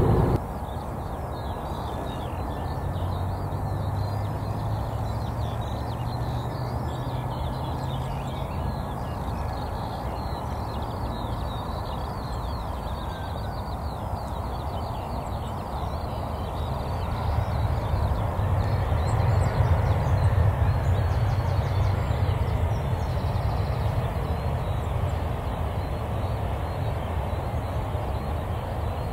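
Jet airliner engines rumbling at a distance, a steady low drone that swells about two-thirds of the way through and then eases, with birds calling faintly.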